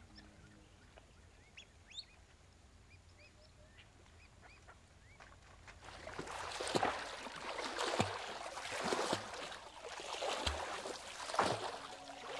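Faint bird calls, then from about six seconds in a series of loud water splashes, five or six sharp strikes churning the water.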